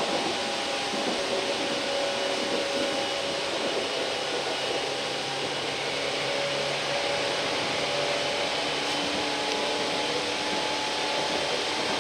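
Tokyu 8500 series electric train running, heard inside the passenger car: a steady rushing running noise with a few held whining tones over it.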